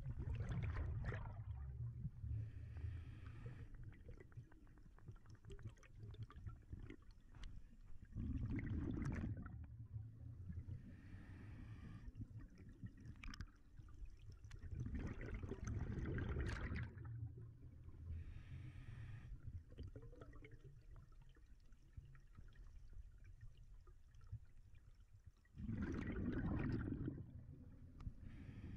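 Scuba diver breathing through a regulator underwater: four loud rushes of exhaled bubbles, several seconds apart, with a faint hiss of inhaling between them.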